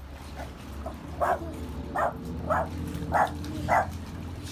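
Small Yorkshire terrier barking: about five sharp, high yaps, roughly two a second, starting about a second in, over a steady low hum.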